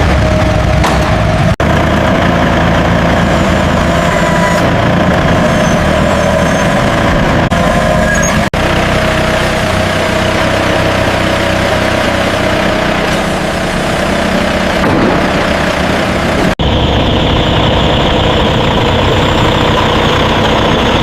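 Steady, loud machinery noise with a few steady tones through it, changing abruptly in character three times.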